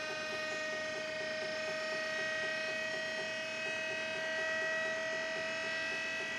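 Steady electronic buzz of several held tones, one strong pitch with higher ones above it, and a faint pulsing about four times a second: the DIY laser galvanometer's hard-drive and RC-helicopter-motor mirror actuators driven by audio tones.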